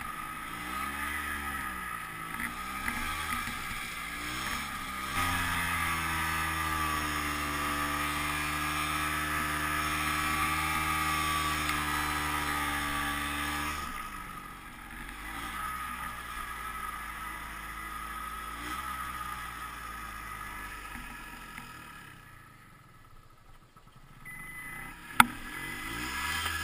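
Ski-Doo Tundra snowmobile's two-stroke engine working through deep powder: revs waver at first, then hold high and steady for several seconds before dropping about halfway through. Near the end the engine falls almost quiet, a single sharp click sounds, and the engine picks up again as the sled is backed out in reverse.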